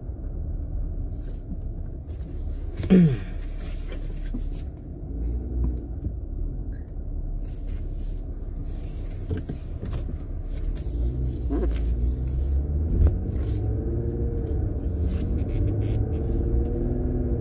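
A 2021 two-door Jeep Wrangler driving slowly, heard from inside: a steady low rumble of engine and tyres on the road. About three seconds in there is a brief, loud sound that falls in pitch.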